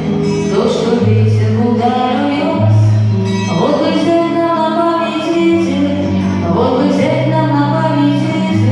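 A song with sung vocals over instrumental backing, with long held bass notes under the melody.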